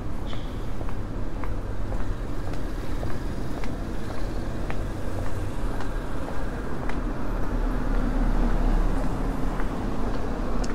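City street traffic: a steady rumble of road vehicles, with one engine growing louder and passing about two-thirds of the way through.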